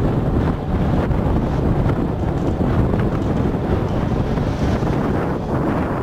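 Wind buffeting the microphone on a moving open wooden tram, over the tram's steady low running noise.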